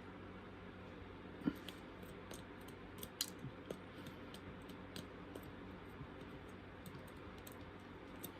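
A spork's prongs picking and scraping seeds out of a cut chili pepper: faint scattered clicks and ticks, a little louder about a second and a half in and again near three seconds. A low steady hum runs underneath.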